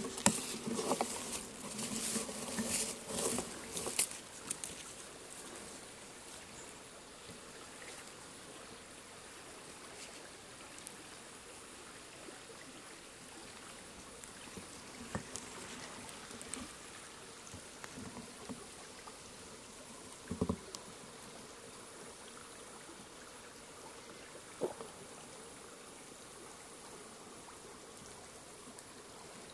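Faint steady trickle of a shallow woodland stream. Irregular rustling and knocks fill the first four seconds, and a few single soft knocks come later.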